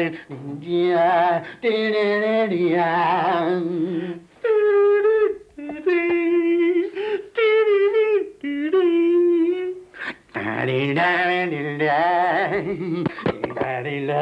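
Singing in a wavering, ornamented style: a man's lower voice sings, then about four seconds in a higher voice takes over with long held notes, and the lower voice comes back about ten seconds in.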